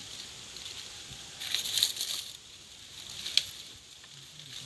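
Dry leaves and brush rustling and crackling for about a second as the bank vegetation is pushed through with a stick, followed by a single sharp snap a second later.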